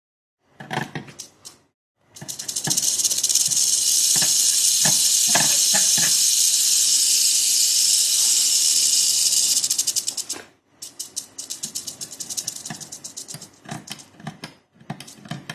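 Rattlesnake rattling: a continuous high buzz for about eight seconds that cuts off sharply, then starts again in short broken bursts of rapid ticking.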